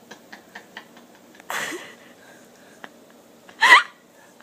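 A woman's stifled laughter: a run of quick breathy pulses, a breathy burst about a second and a half in, and a short, loud squeaky burst near the end.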